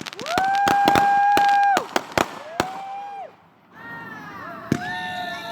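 Fireworks going off: a few sharp cracks in quick succession, then a loud whistling firework holding one steady pitch for about a second and a half before dropping away. Shorter whistles follow, falling in pitch, with several overlapping near the end.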